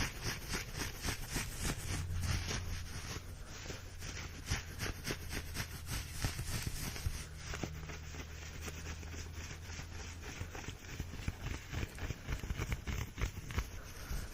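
Close-miked scratching and tapping on a surface, a dense rapid run of crackly strokes with a low hum underneath.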